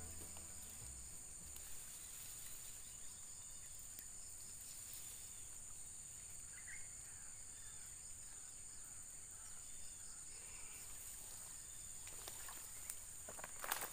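Faint steady high-pitched drone of insects in rural wetland grass, with a few faint chirps in the middle. Near the end, rustling and crunching steps in the grass.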